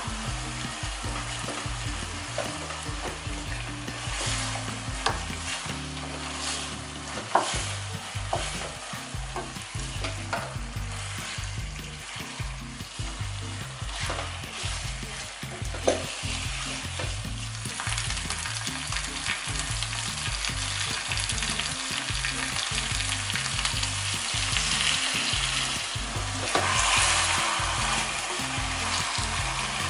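Chicken pieces coated in red glutinous rice wine lees sizzling in a pot as they are stirred with a wooden spatula, with the spatula knocking and scraping against the pot now and then. The sizzling grows a little louder near the end.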